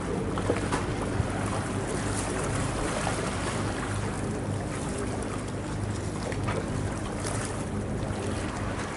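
Boat engine running steadily with a low hum, under wind and water noise.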